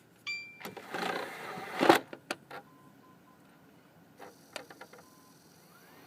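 Xbox 360 Slim's DVD drive ejecting a disc: a short beep, then about a second of whirring and grinding from the tray mechanism that ends in a loud clunk, followed by a few scattered clicks. The owner is unsure whether this noise on every eject is normal or a sign of a fault.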